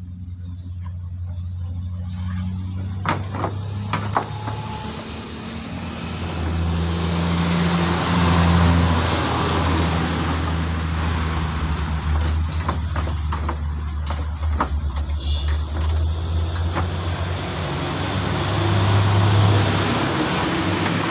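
A motor vehicle engine running, a steady low hum that swells and fades again, with a few sharp clicks of metal parts being handled in the first few seconds.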